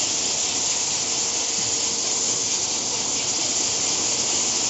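Rinsing, filling and capping monobloc on a bottled-water line running: a loud, steady, high hiss with a faint hum beneath it.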